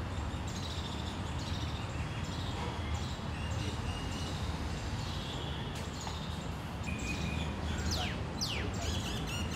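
Birds chirping and calling against a steady low background rumble, with a few quick falling whistled notes about eight seconds in.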